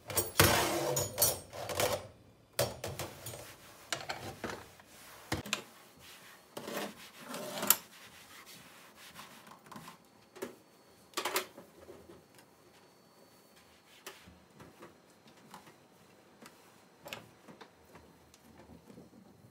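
A thick disposable cleaning sheet wipes a stainless steel counter and gas hob, with irregular knocks and clatters from the metal burner grate being handled. The knocks are busiest in the first couple of seconds and sparser afterwards.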